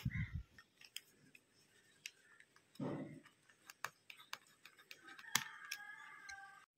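Small screws being driven with a precision screwdriver into a smartphone's internal frame: faint scattered clicks and ticks of the screwdriver tip and metal screws, with a short dull knock about three seconds in.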